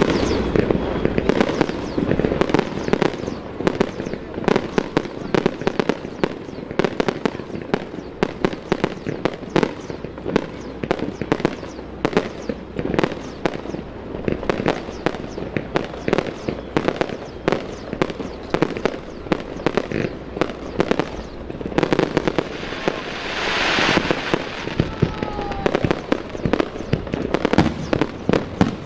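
Fireworks display: aerial shells bursting one after another in quick, irregular succession, dozens of sharp bangs over a continuous rumble, with a hissing rush about two-thirds of the way through.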